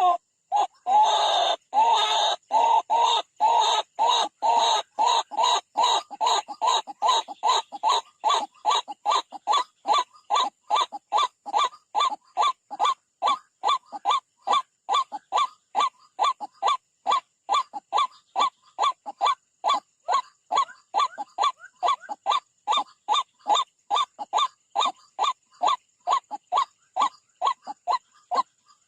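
White-breasted waterhen (ruak-ruak) giving its monotonous repeated call, short honking notes about two to three a second, kept up without a break; the first few seconds are louder and fuller.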